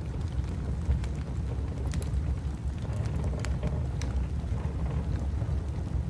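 Wood fire crackling, with scattered sharp pops, over a steady low rumble of howling wind.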